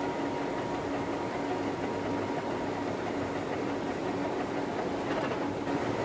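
Metal lathe running steadily, a constant mechanical hum with one held low tone, as the spinning workpiece has its thread cut by a tap clamped as the cutting tool.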